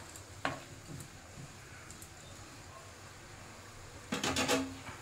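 A slotted steel spatula knocks once against the pan about half a second in, over the faint steady simmer of the sauce in the kadai. Near the end comes a short cluster of louder metal knocks with a brief ringing.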